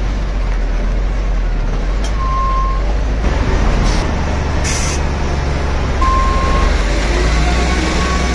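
Loaded cargo truck's diesel engine running slowly in low gear on a rough dirt road, heard from the cab. There is a knock about four seconds in, a brief hiss just after it, and two short high tones, one near the start and one about six seconds in.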